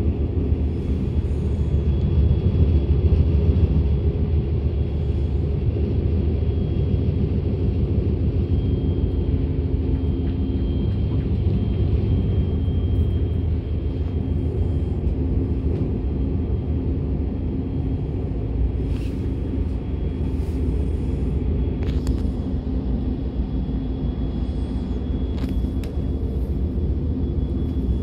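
Running noise of a DB Class 425 electric multiple unit under way, heard from inside: a steady rumble of the wheels on the track, with a faint high steady tone over it and a few brief clicks in the second half.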